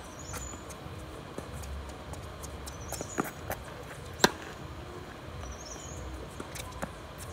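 Tennis balls struck by rackets and bouncing on a hard court during a doubles rally: sharp pops a fraction of a second to a couple of seconds apart, the loudest about four seconds in.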